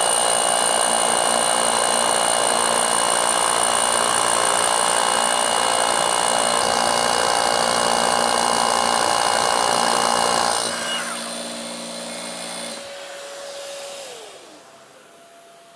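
Two rotary hammers, a Hilti Neuron TE 50-22 cordless and a corded one, hammer-drilling into concrete at the same time with dust-extraction vacuums drawing through hollow bits. Much of the sound stops about eleven seconds in and the rest about two seconds later. Near the end a motor winds down with a falling hum.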